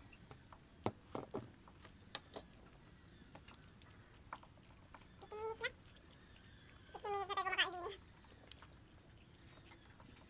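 A cat meowing twice: a short meow about five seconds in and a longer one about seven seconds in. Faint clicks of eating by hand come in between.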